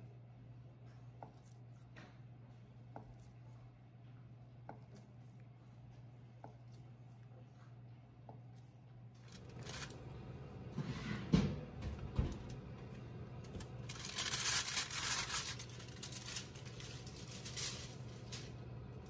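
Aluminium foil crinkling and rustling as it is peeled off a baking tray, loudest in the second half, with two sharp knocks about a second apart as the tray is handled. A steady low hum and a few faint ticks sit underneath.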